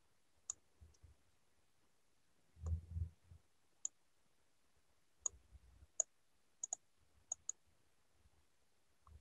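Computer mouse and keyboard clicks: about nine single sharp clicks spread out, two of them in quick pairs a little past the middle, with a keyboard shortcut among them. A brief low sound comes about three seconds in.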